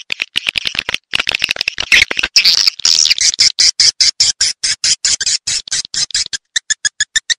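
Swiftlet chirps from a lure-call recording used to draw edible-nest swiftlets into a swiftlet house: a fast, dense run of short sharp chirps, crowded together at first and settling after about three seconds into an even stream of about six or seven a second.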